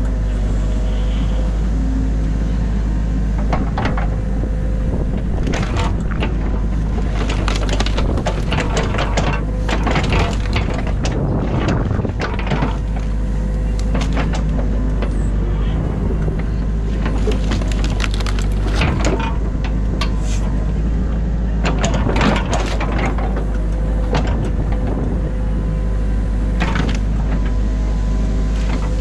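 Excavator's diesel engine running steadily, heard from the cab, while the bucket digs through a beaver dam of silt and sticks: frequent sharp cracks and snaps of branches breaking and mud being scraped.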